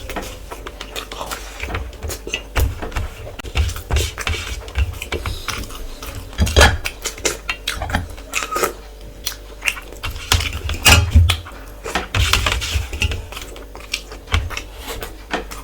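Close-up eating sounds: plate and utensil clinks and clicks mixed with irregular wet chewing of rice and curry, with low thumps from handling.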